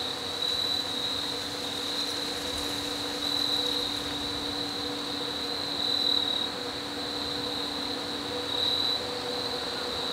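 Insects trilling steadily in the woods, a high continuous chorus that swells and fades every second or two, over a faint steady hum.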